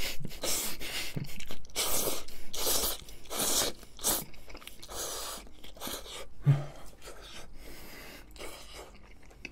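Close-up slurping of spaghetti noodles in a run of quick, noisy sucks through the first half, then quieter chewing. A short low hum comes about six and a half seconds in.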